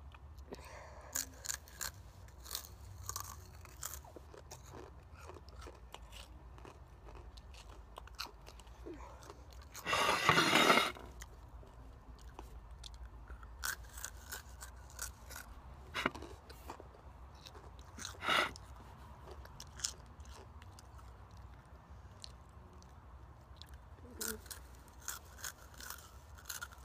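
A person chewing and crunching Takis rolled tortilla chips, with sharp crunches and smacking scattered irregularly throughout. A louder rush of noise lasting about a second comes about ten seconds in.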